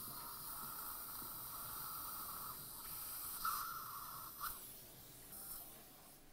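Faint hissing of a dental surgical suction, with two brief louder slurps about three and a half and four and a half seconds in; it fades out near the end.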